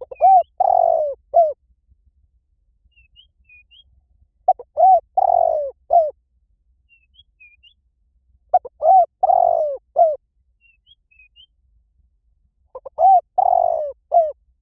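Spotted dove cooing: four identical phrases about four seconds apart, each a couple of short coos, a longer rolling coo and a last short coo. Faint high chirps of small birds come between the phrases.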